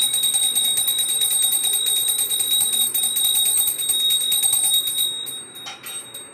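Pooja hand bell rung rapidly and continuously, a bright ringing with a steady high tone. It stops about five seconds in, with a couple of last strikes fading out.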